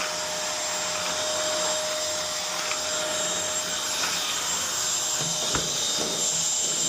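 Bissell 3-in-1 stick vacuum running steadily, a constant whine over the suction rush, with its floor head's brush roll not spinning.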